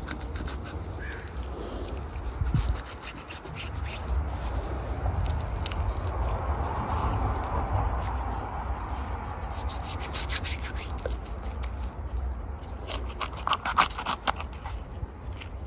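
Knife slicing open a fresh salmon's belly: soft rubbing and scraping of the blade through skin and flesh, with scattered small clicks, thickest near the end, over a steady low rumble.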